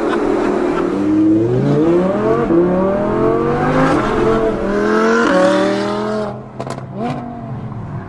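Audi R8 V10 Plus's naturally aspirated 5.2-litre V10, through an aftermarket valved Fi Exhaust catback, accelerating hard. Its pitch climbs and then drops at each of several upshifts. About six seconds in it falls away to a quieter run, with a few sharp pops.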